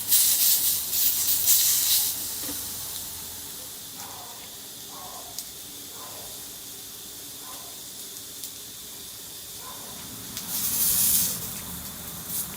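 Burning firewood hissing steadily, with louder surges of hiss at the start and again near the end.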